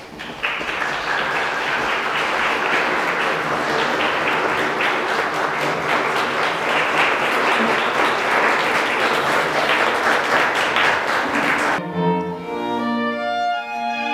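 An audience applauding steadily. About twelve seconds in, the clapping gives way to bowed string instruments playing, with violin and cello heard.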